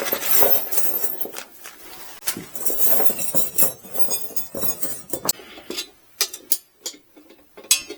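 Irregular light metallic clinks and knocks of small heater-kit parts and hardware being handled and set down.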